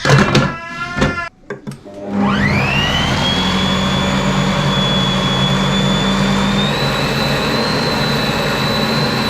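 Electric kitchen blender starting up about two seconds in, its motor whine rising quickly and then running steadily as it blends beef mince and bacon into a paste. The whine steps a little higher in pitch about two-thirds of the way through.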